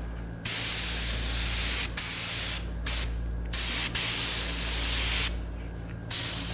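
Spray gun spraying wood dye in several trigger pulls: hissing bursts that start and stop sharply, the longest nearly two seconds, with short breaks between them. A steady low hum runs underneath.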